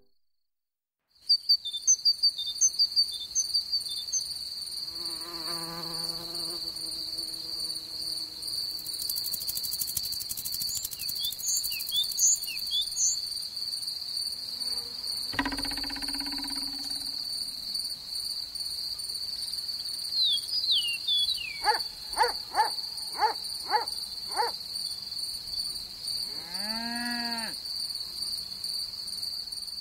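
Crickets chirping in a steady, continuous trill that starts about a second in. Short chirps and a few pitched calls come in over it now and then, including a run of six quick falling calls near the end.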